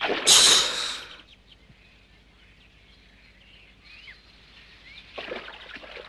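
Cartoon splash effect: a loud splash about a second long as a body plunges into water. After it come faint bird chirps in a quiet swamp ambience, and a softer swish of water near the end.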